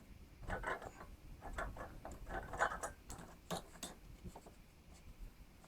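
Faint, irregular clicks, taps and short scrapes of hands and tools handling small-engine parts.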